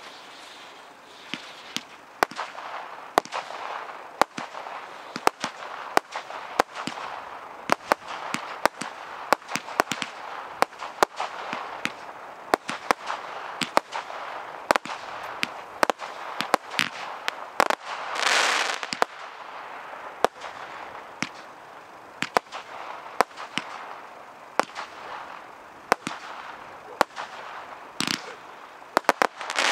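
Bright Star Fireworks 'Slammer' 25-shot barrage cake firing: a rapid series of sharp launch thumps and bursts, with hissing tails and glitter crackle between the shots. A louder hiss rises about eighteen seconds in.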